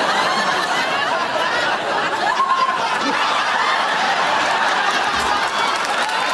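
Audience laughing continuously: many voices laughing together at a steady level.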